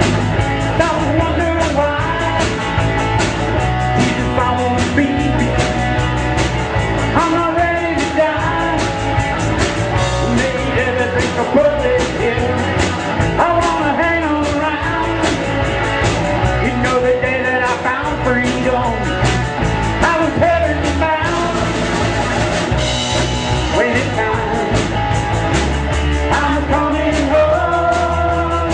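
A rock band playing a song with a sung lead vocal over drums, bass and guitar, with a steady beat.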